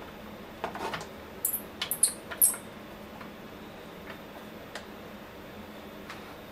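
Plastic LED ring light being pushed and turned onto a stereo microscope's lens housing: a cluster of short clicks and squeaky scrapes in the first two and a half seconds, then a few faint ticks.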